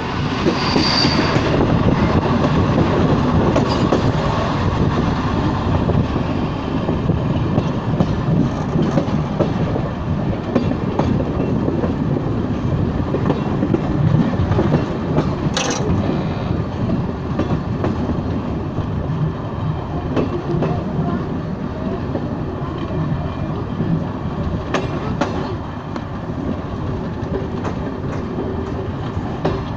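Regional passenger train running, with a steady rumble and some clickety-clack of wheels over the rails. There is a brief high squeal about a second in and a sharp click about halfway through.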